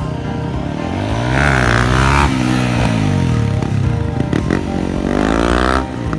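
Honda CRF250L single-cylinder four-stroke engine breathing through an FMF PowerCore 4 exhaust, revved twice: the pitch climbs and drops back to idle, then climbs again and cuts off sharply near the end.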